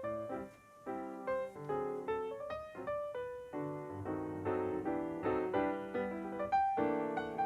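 Background piano music, notes struck in a lively run with chords.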